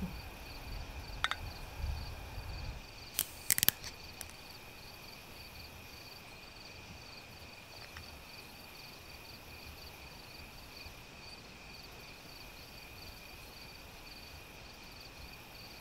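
Glass bottles clinking together in a toast: one light clink about a second in, then a few sharp clinks just before the four-second mark, the loudest sounds. Crickets chirp steadily behind them, with a low rumble over the first few seconds.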